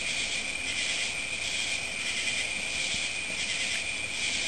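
Night insects chorus: a steady high trill with a higher hiss over it that swells and fades about twice a second.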